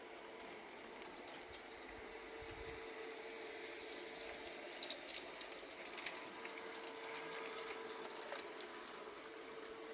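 LGB G-scale model trains running on garden railway track: a steady electric motor hum with scattered small clicks and rattles of wheels over the rails.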